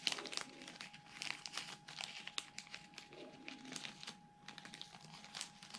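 Small clear plastic zip bags crinkling and crackling in irregular bursts as they are handled.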